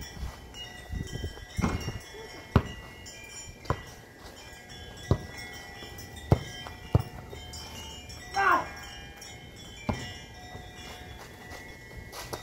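Wind chimes ringing steadily, with a basketball bouncing and striking in about half a dozen scattered sharp thuds, and a brief wavering call about two-thirds of the way through.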